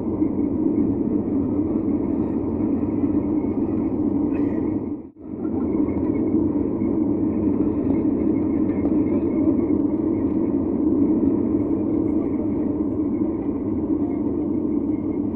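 Steady jet engine and airflow noise inside an airliner cabin during the climb after takeoff. It cuts out for a split second about five seconds in.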